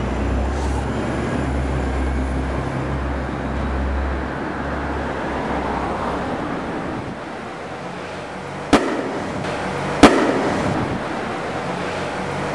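A box carrying an egg, thrown from a rooftop, hits the pavement: two sharp bangs a little over a second apart, the second the louder, over steady outdoor traffic noise.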